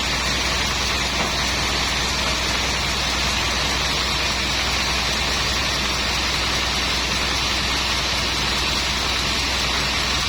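Sawmill machinery running with a steady low hum and hiss.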